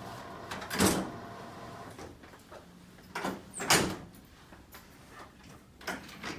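An electric hospital bed's motor hums as the bed is raised and stops just after the start. Then come a few short clunks and rustles from handling the bed and stretcher, the loudest about a second in and just before four seconds in.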